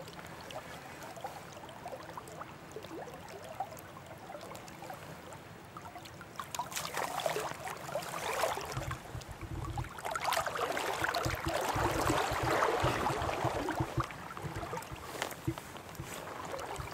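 River water flowing around a wader's legs: a quiet steady wash, turning from about seven seconds in to louder, uneven splashing and water noise with a low rumble underneath.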